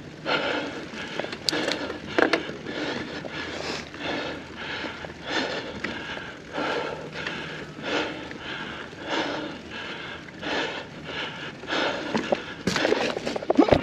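A mountain biker's hard, rhythmic breathing, about one and a half breaths a second, over the clatter of the bike on the trail. A louder jumble of noise breaks in near the end.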